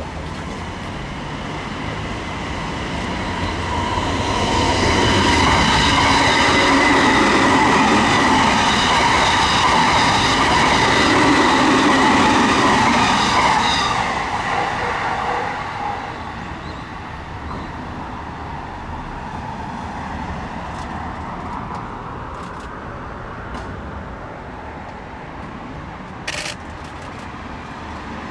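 A JR E217 series commuter electric train passes close by, its wheels on the rails and a steady high whine rising to a loud peak for about ten seconds before fading away. Afterwards a quieter rumble follows as the red Izukyu 2100 series Resort 21 train approaches, with one sharp click near the end.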